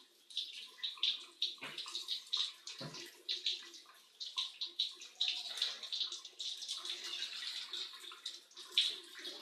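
Running water from a shower splashing irregularly over a pet Alexandrine parakeet, in short uneven bursts.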